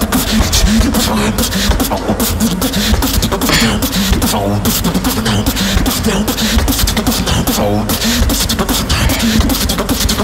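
Live competition beatboxing: a fast, dense beat of vocal bass and percussive mouth sounds, with short warbling pitched vocal sounds about four and a half and about eight seconds in.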